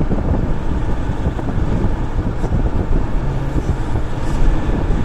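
Steady road and wind noise of a moving car, heard from inside, as an even low rumble.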